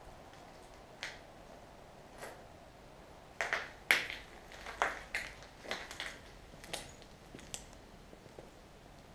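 Footsteps on a floor littered with grit and fallen plaster: a string of sharp crunches and clicks, sparse at first and thickest from about three to eight seconds in.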